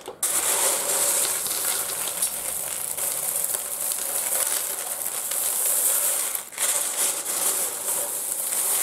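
Small rough opal chips clattering and rattling against each other as hands scoop up handfuls and let them pour back onto the pile, a continuous crunchy clatter with a brief pause about six and a half seconds in.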